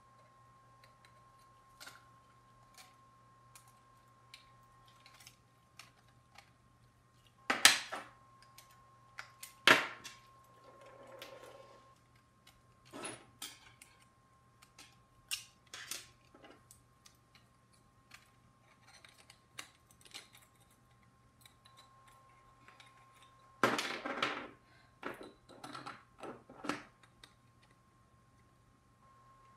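Scattered clicks, taps and knocks of plastic blaster parts and metal rods being handled and fitted together, with two sharp knocks about a quarter of the way in and a cluster of clatter near the end. A faint steady hum runs underneath.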